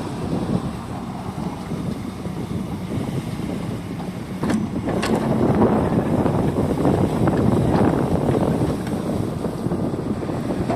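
Hyundai 140W wheeled excavator's diesel engine running under load, buffeted by wind on the microphone. It gets louder about four and a half seconds in, with two short sharp knocks about half a second apart.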